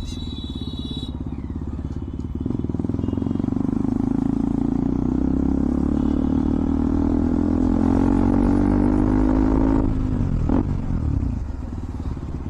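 KTM Duke 200's single-cylinder engine through an Akrapovic exhaust with the dB killer removed, accelerating: the note climbs steadily for several seconds, then drops away as the throttle closes near the end.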